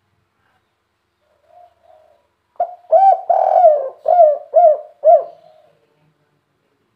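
Spotted dove (tekukur) singing one cooing phrase: a couple of faint soft notes, then a loud run of coos with a long middle note and three short, evenly spaced closing coos about half a second apart. This is the 'kuk 3' three-note-ending song prized by Indonesian dove keepers.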